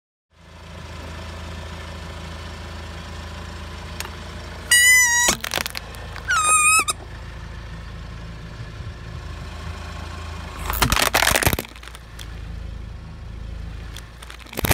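Car engine idling with a low hum under everything. About five and six and a half seconds in, a rubber toy being squashed gives two loud squeals that waver in pitch. About eleven seconds in, and again at the end, plastic cracks and crunches under a tyre.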